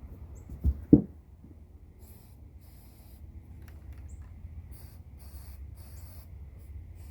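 Two dull knocks about a second in, then a run of short, faint hissing spurts over a steady low rumble: hands-on work sealing a chimney boot on a bus roof.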